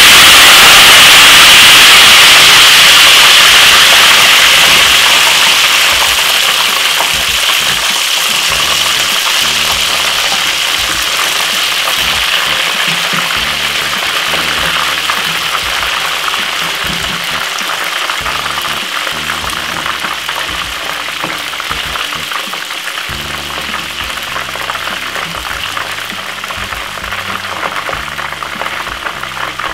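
Loud sizzling of thin green plantain slices, still wet from their salt-water soak, just dropped into hot oil in a frying pan; the sizzle is strongest at first and slowly eases as the frying settles down.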